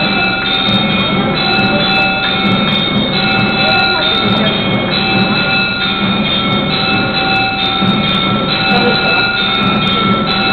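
Temple bells ringing and clanging continuously with percussion during the aarti: a loud, unbroken metallic din with sharp strikes about twice a second.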